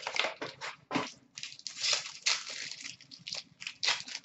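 Wrapper of a 17-18 Upper Deck SP Game Used hockey card pack crinkling and crackling in the hands as it is torn open, a string of irregular crisp rustles.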